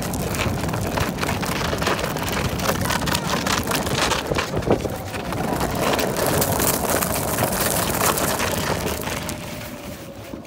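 Golf cart driving over loose dirt and gravel, its tyres making a dense crackling with many small clicks and pops. It gets quieter near the end.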